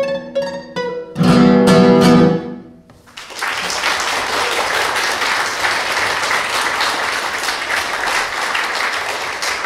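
Classical guitar playing its last few plucked notes and a loud final chord that rings and dies away. About three seconds in, an audience breaks into steady applause.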